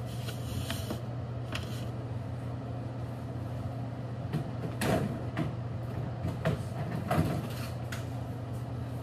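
Steady low room hum, with a cluster of short knocks and clatters from about four to seven seconds in as things are picked up, shifted and set down.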